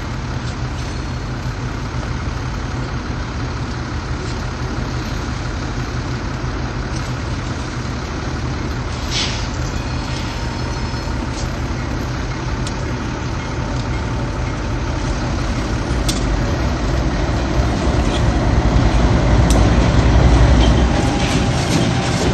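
Diesel-electric locomotives rumbling past at slow speed, among them BC Rail's GE Dash 8-40CM cowl unit 4603. The engine sound grows louder over the last third as the units come close, with a few short clicks and a brief hiss along the way.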